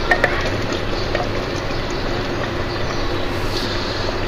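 Melted ghee poured in a thin stream from a cup into a clay pot of cooking liver masala, over a steady hiss and low hum, with a couple of light clicks near the start.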